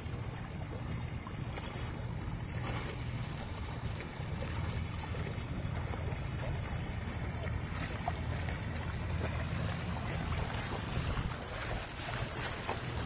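Wind buffeting the microphone as a steady low rumble, with small lake waves lapping against plastic kayak hulls.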